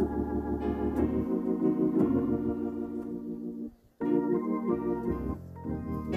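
Organ music: sustained chords that change about once a second, cutting out briefly a little past halfway.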